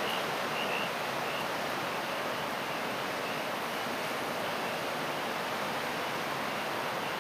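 Steady rain falling during a thunderstorm, a constant even hiss.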